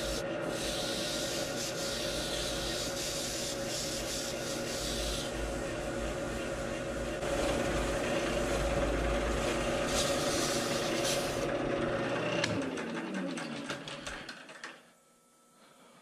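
Grizzly wood lathe running with a steady hum while a hand-held tool rubs against the spinning foam blank with a hissing scrape. About twelve seconds in, the lathe's hum falls in pitch and dies away as it spins down.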